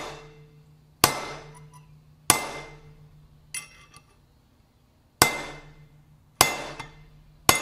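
Hammer blows on a steel steering-stem installer tube, driving a tight-fitting tapered roller steering-head bearing down onto a motorcycle's lower triple-clamp stem. Six sharp metallic strikes about a second apart, each ringing briefly, the third lighter than the rest.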